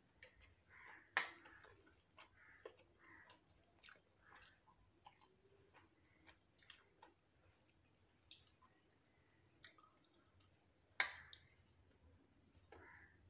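Faint chewing and mouth sounds of a person eating rice with chillies. There are scattered small clicks, and two sharp, louder clicks about a second in and near the end.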